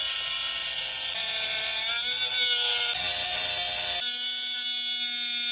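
12-volt cordless mini angle grinder running, a steady high motor whine whose pitch wavers and sags slightly in the middle, with an abrupt change in tone about four seconds in.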